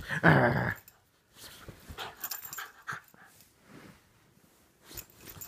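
Cocker spaniel puppy play-fighting, with one loud vocal sound in the first second, followed by panting and softer scuffling noises.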